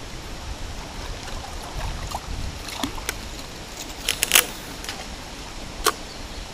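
Fishing gear clicking and knocking against an aluminium boat while a hooked fish is played, over steady wind and water noise. There are a few scattered clicks, then a quick cluster of louder ones about four seconds in and a single one near the end.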